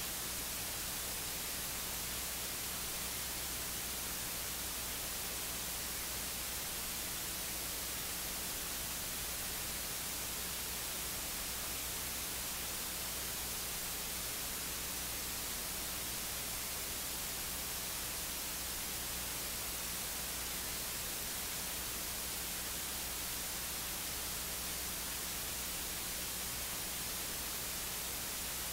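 Steady electronic hiss with a low mains hum underneath and no voice: the recording's audio feed has dropped out, leaving only the noise floor of the sound equipment.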